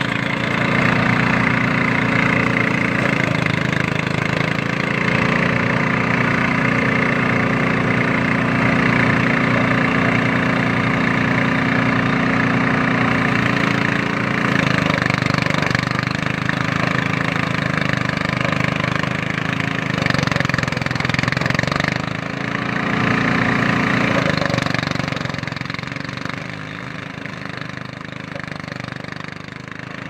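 Engine-driven portable rice thresher running, with a steady engine note over the rushing noise of stalks going through the drum. The engine pitch sags a few times under load as bundles of rice are fed in, and the machine is somewhat quieter in the last few seconds.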